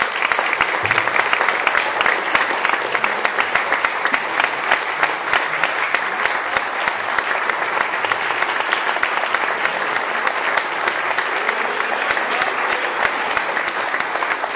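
A roomful of people applauding: dense, steady clapping from many hands.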